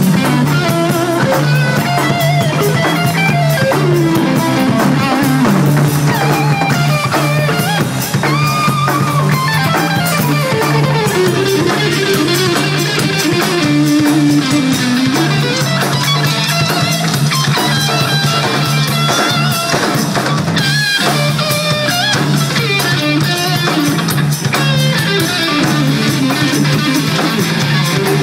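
Live instrumental jazz-funk band: an electric guitar plays a lead line over a drum kit.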